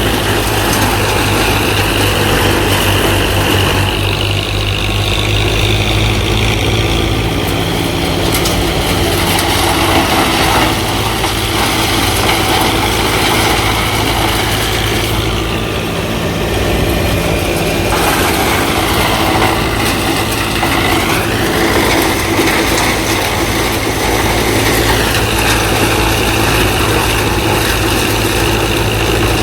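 A JCB 5CX backhoe loader's diesel engine runs steadily while loading mud. A high whine over the engine drone falls in pitch about two-thirds of the way through, then rises back to its earlier pitch.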